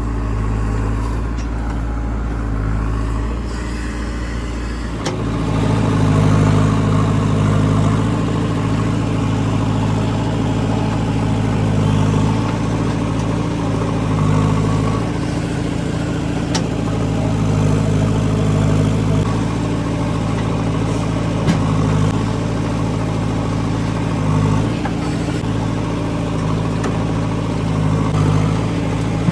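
Heavy diesel engine running steadily, revving up about five seconds in and holding at the higher speed under working load, with a few light knocks.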